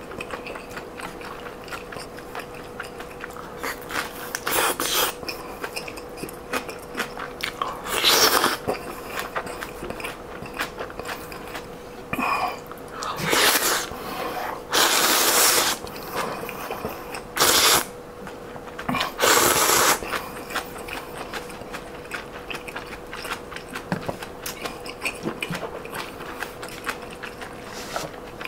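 A person eating noodle soup close to a clip-on microphone: steady chewing and lip-smacking, broken by about six loud slurps of noodles and broth, one to one and a half seconds each, in the first two-thirds.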